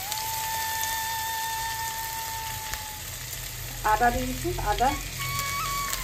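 Food sizzling as it fries in hot oil in a pan, with some stirring. A soft background melody holds one long note over the first half, and two brief louder pitched flurries come about four and five seconds in.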